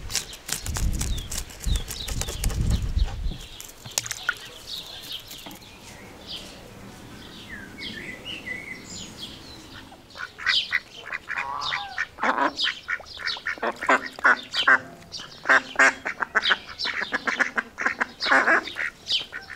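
A knife scrapes scales off raw fish on a wooden board in quick strokes for the first few seconds. From about halfway, domestic ducks quack repeatedly in a rapid series to the end.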